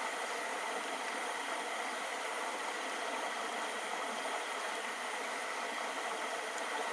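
Stream water running with a steady, even rush.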